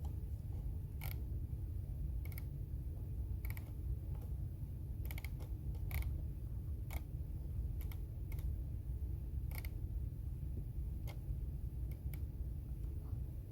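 Occasional single key presses on a computer keyboard: about a dozen sharp clicks at uneven intervals, roughly one a second, over a steady low hum.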